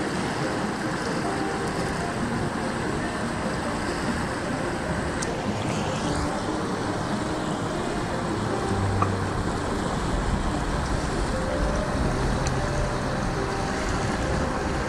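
Steady rushing noise of flowing river water and wind, with a deeper low rumble in the second half.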